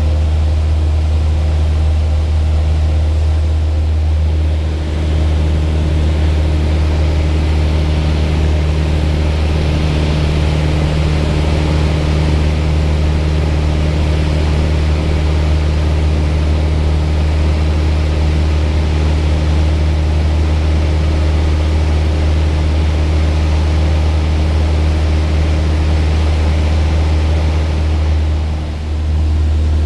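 Propeller airplane engine running steadily: a constant loud low drone with a hiss above it, dipping briefly about five seconds in and again near the end.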